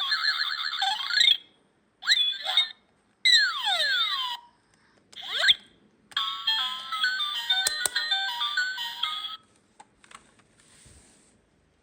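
Electronic toy sound chip playing tinny beeping jingles with swooping rising and falling tone sweeps in between, in short bursts separated by silences, then a longer melody; a sharp click about eight seconds in.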